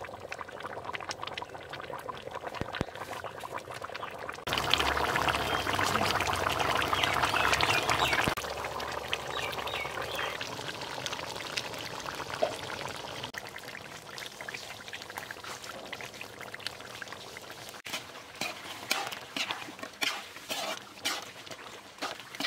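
Pork and radish curry boiling in a large pan, a steady bubbling hiss that grows louder for a few seconds about five seconds in, with scattered pops and clicks near the end.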